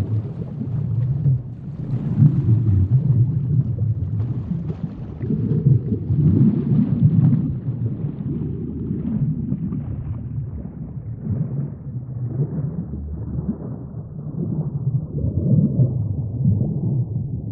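A low, uneven rumbling noise that swells and eases every few seconds, with a faint crackle above it.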